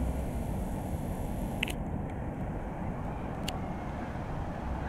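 Steady low outdoor rumble, with two faint clicks about a second and a half and three and a half seconds in.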